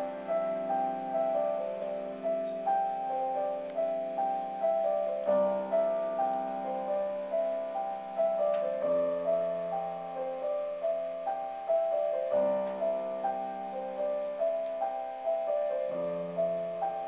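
Solo piano playing a gentle, repeating broken-chord figure over held bass notes, the chord changing about every three and a half seconds.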